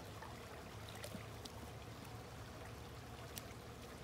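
Faint, steady trickle of running pool water over a low hum, with a couple of light clicks.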